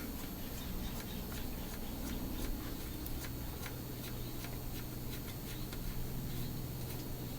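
Small irregular clicks and taps of hand tools and metal parts being handled during bench work on a chainsaw, over a steady low hum.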